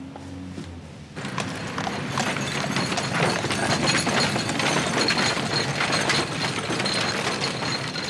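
Horse's hooves clip-clopping on a road in a dense clatter that starts about a second in.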